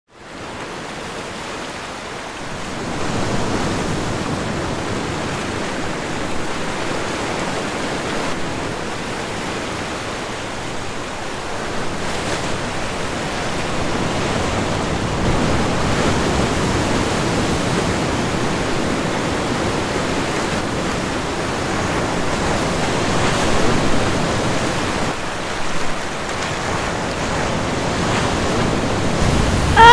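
Ocean waves washing on a shore: a steady rush of surf that grows louder about three seconds in and swells and eases a little.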